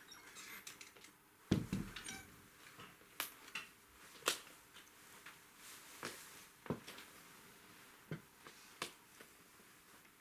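Scattered small knocks and clicks in a quiet room, the loudest a dull thump about one and a half seconds in, followed by a handful of sharper ticks spread over the following seconds.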